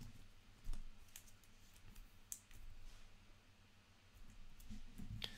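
Faint, scattered clicks of a clear plastic trading card being handled between the fingers.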